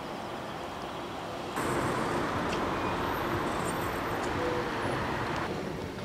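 Steady outdoor urban background noise, a hiss with no clear tones, stepping up louder about one and a half seconds in and dropping back shortly before the end.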